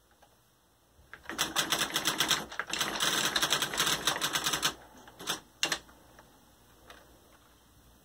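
Xerox 6010 Memorywriter electronic typewriter printing as it is typed on: its daisywheel hammers out a rapid run of character strikes for about three seconds, then two single strikes.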